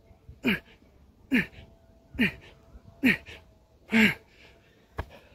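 A man's heavy, voiced exhalations, five in a row just under a second apart, each falling in pitch: hard breathing from the exertion of a burpee workout. A single sharp click near the end.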